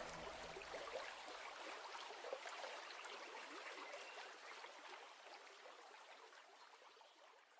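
Faint trickling, water-like ambience fading steadily away, with the last notes of the music dying out at the start.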